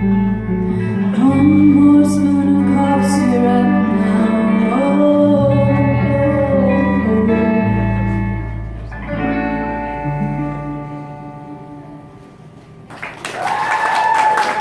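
Live amateur rock band ending a song: sustained guitar and keyboard chords over steady bass notes, with a singer holding long wavering notes, then the music dies away. About a second and a half before the end, applause and a cheer break in.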